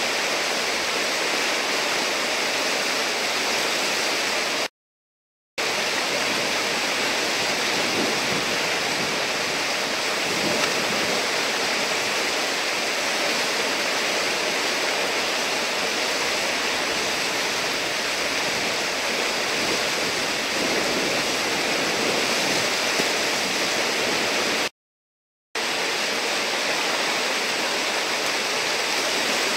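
Whitewater rushing steadily through a river hole, a continuous roar of churning water. The sound cuts out completely twice, briefly, about five seconds in and again near the end.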